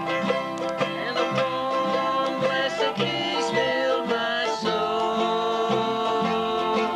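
Plucked acoustic string instruments playing a lively bluegrass-style tune, with quick picked notes over chords and some longer held notes near the end.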